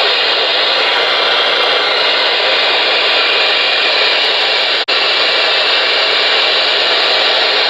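Loud, steady static hiss from the receiver speaker of a Galaxy DX-98VHP ten-meter radio with its squelch open, cutting out for an instant about five seconds in.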